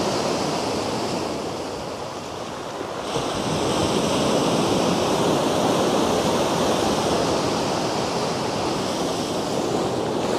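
Sea surf breaking and washing up the beach: a steady rush of waves from a swell of about 2.5 to 3 feet that has been picking up, dipping a little about two seconds in.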